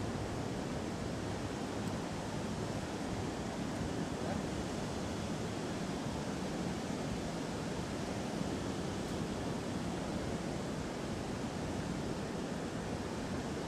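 Steady rush of river water pouring over a low concrete weir and churning in the whitewater below.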